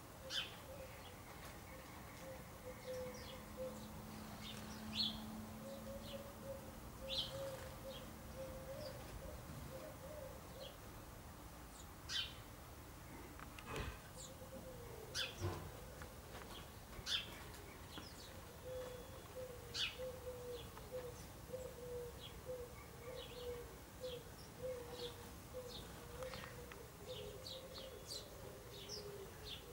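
House sparrows chirping: short, sharp single chirps, one every second or two, fairly faint.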